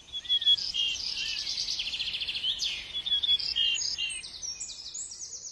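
Birdsong: a busy run of quick chirps and rapid trilled phrases, several overlapping, over a faint steady hiss.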